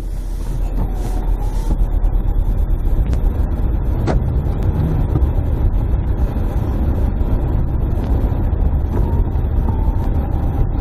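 Car driving on a wet road, heard from inside the cabin: a steady low rumble of engine and tyres. A single sharp click about four seconds in.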